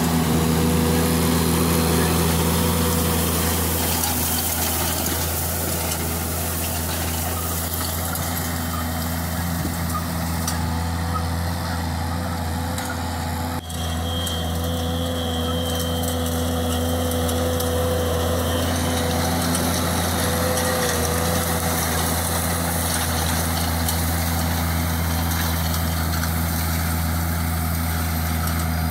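Lamborghini R7.210 tractor's diesel engine running steadily under load while pulling a rotary hay rake, with a brief drop in level about halfway through.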